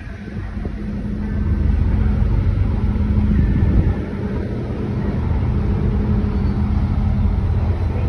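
Train ferry's engines and propulsion running under way, a steady low rumble with a droning hum, building up over the first second and easing slightly about halfway through, as the ship pulls away from its berth.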